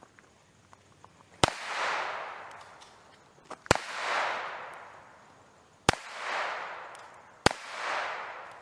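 Four shots from a small .25-caliber pistol, about two seconds apart, each a sharp crack followed by a long echo that swells and dies away.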